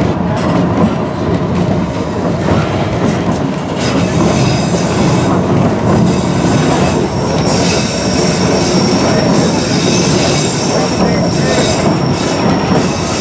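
White Pass and Yukon Route narrow-gauge passenger train running along the track, heard from inside a passenger car. From about halfway through, a thin high squeal of the steel wheels on the rails rides over the rumble.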